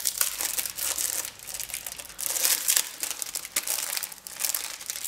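Packaging of a sticker kit crinkling and rustling as it is opened by hand, in irregular handfuls with short pauses.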